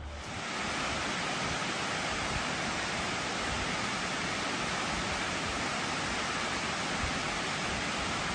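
Water spilling over a concrete dam's gated overflow spillway and crashing into the river below: a steady, unbroken rush of white water.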